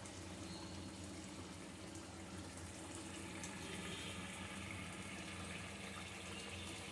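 Bengali fish curry gravy boiling in a kadai: a faint, steady bubbling hiss over a low hum.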